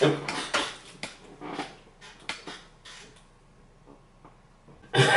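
Cloth rustling and a few short, sharp clicks as a knitted poncho is tugged free of a belt, then it goes quiet for about two seconds.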